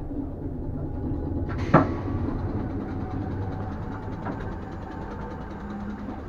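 A commuter train's sliding passenger doors opening with one sharp, loud clunk about two seconds in, over the hum of the standing train, followed by a steady hiss.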